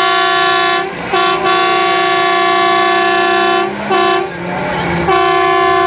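A vehicle horn sounding in long blasts at one steady pitch, with brief breaks about a second in and near four seconds, and a longer pause around four and a half seconds before it sounds again.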